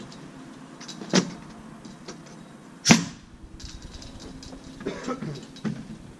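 Two sharp knocks from work on a wooden privacy fence under construction, under two seconds apart, the second the loudest, then a few lighter knocks near the end.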